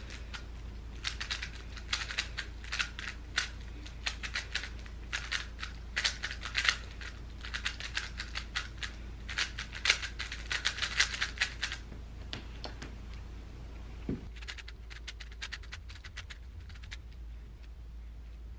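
3x3 Rubik's Cube being turned fast in a speedsolve: rapid plastic clicking in quick flurries, stopping about two-thirds of the way through, then one more short flurry.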